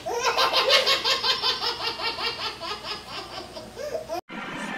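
High-pitched laughter in a long run of quick, even ha-ha pulses, about four a second, breaking off about four seconds in.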